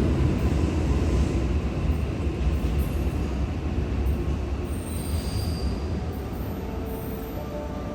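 Train running on the rails with a deep rumble that slowly fades as it moves away, with a faint high wheel squeal briefly about five seconds in.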